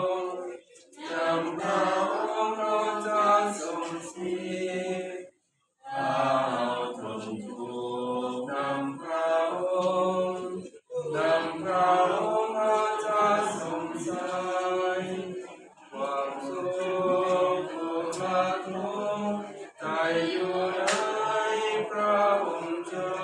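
A group of mourners singing a funeral hymn together in long, held phrases. The singing cuts out for about half a second just past five seconds in.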